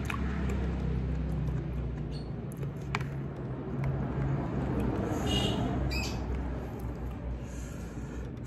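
Eating sounds: a person chewing instant noodles with small wet mouth noises, and a metal fork tapping and scraping a plastic tray, with one sharp tap about three seconds in. A low steady hum runs underneath.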